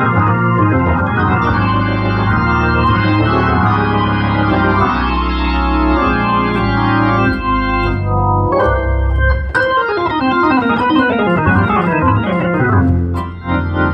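Hammond organ played in a gospel style: full sustained chords over a low bass line, then a quick descending run about ten seconds in, and a fresh chord struck near the end.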